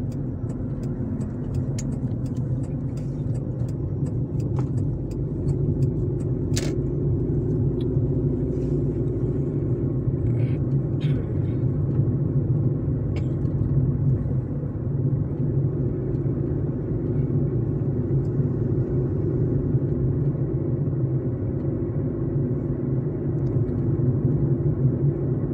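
Car driving along a road, heard from inside the cabin: a steady engine and road rumble. A run of light ticks sounds over the first few seconds, and a single sharp click comes about six and a half seconds in.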